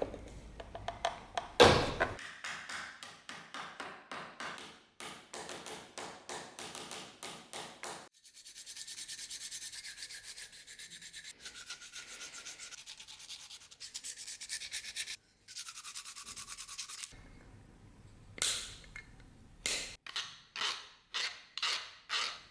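Hand sanding: quick back-and-forth rubbing strokes of abrasive on the work, in runs of rapid strokes, with a steadier, denser rasping stretch in the middle.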